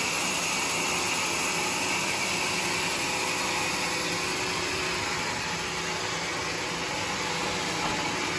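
Log band saw running, its blade cutting through a teak log: a steady, unbroken whirring hiss.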